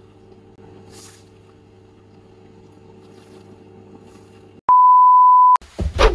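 Faint steady hum, then about two-thirds in a loud electronic beep: one steady pure tone held for just under a second, starting and stopping abruptly. Loud knocks and whooshes follow right after it.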